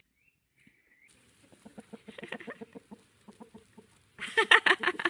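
A chicken clucking in a rapid run of short calls, starting about a second in and building to a loud burst of calls near the end.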